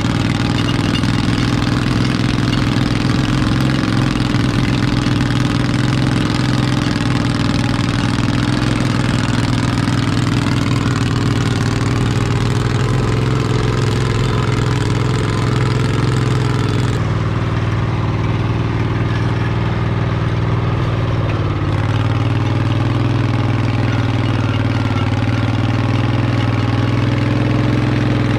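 International Harvester Cub Cadet garden tractor engine running steadily under load while pulling a single-bottom moldboard plow through sod, with a brief dip in engine pitch near the end.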